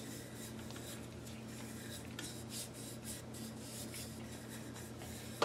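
Faint, irregular rubbing strokes of a gloved fingertip over a freshly sanded 3D-printed plastic ear cap held in a lathe chuck, over a steady low hum. A short knock comes right at the end.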